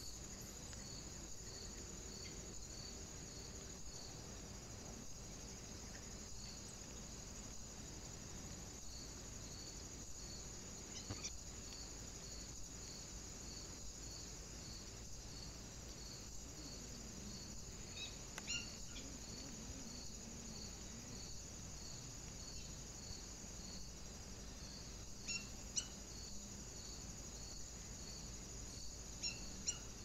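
Faint, steady insect chirping, high-pitched with a regular pulse about twice a second. A few brief sharp chirps or clicks stand out over it, about 11, 18, 25 and 29 seconds in.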